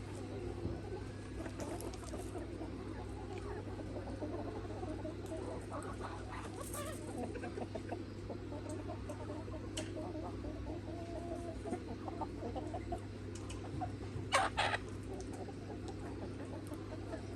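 A free-range flock of Mía chickens, roosters and hens, clucking softly and continuously, with one louder short squawk about fourteen seconds in. A steady low hum runs underneath.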